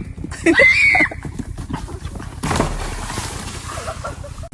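A farm animal's loud cry about half a second in, rising and then falling in pitch, followed by a short noisy burst about two seconds later.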